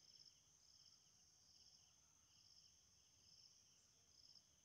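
Near silence, with an insect, likely a cricket, chirping faintly in the background: short, high chirps repeating a little under once a second.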